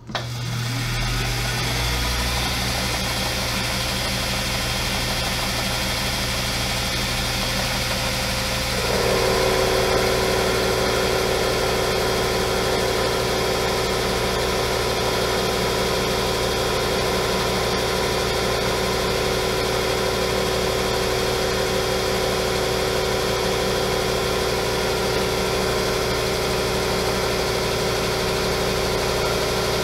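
Metal lathe starting up and running steadily as it turns a small hot-rolled steel crankshaft between centres: a sudden motor hum at the start, with a louder, higher whine joining about nine seconds in as the turning gets under way.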